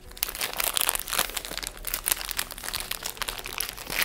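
Plastic wrapper of a Nature Valley granola bar crinkling in a series of quick, irregular crackles as it is opened by hand.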